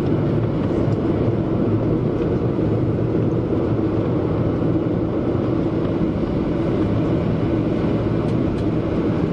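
Steady cabin drone of a Boeing 737-900ER taxiing, its CFM56-7B jet engines at low taxi power, heard from inside the cabin. A low, even rumble with no rise in power.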